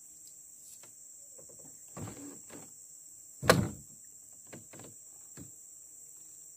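Steady high chirring of insects, with a scuffle about two seconds in, one sharp knock about three and a half seconds in, and a few softer clicks after it.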